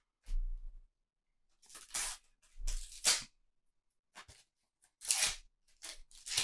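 Panini sticker packet being torn open and the stickers handled: a few short papery tears and rustles, with a couple of soft bumps.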